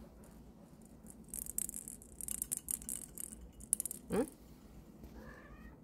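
Quiet scratching and rustling on a fleece blanket for a couple of seconds, from kittens and a hand moving about. Then a short rising squeak about four seconds in, and a faint falling kitten mew near the end.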